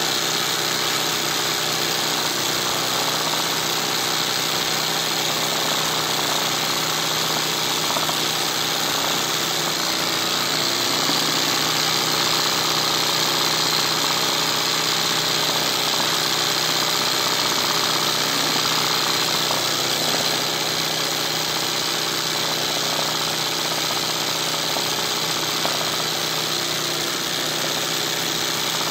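Hand-guided embroidery sewing machine running steadily at speed, its needle stitching continuously as the hooped fabric is moved under it.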